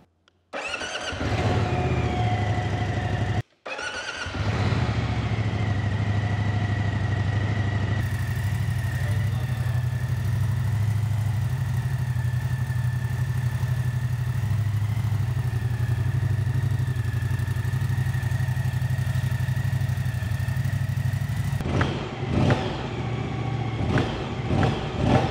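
A 2024 Moto Guzzi Stelvio's 1042 cc V-twin is started for the first time from new. It fires up and settles into a steady, loud idle, with a thin high whine over the low engine note. Near the end the throttle is blipped several times in quick succession.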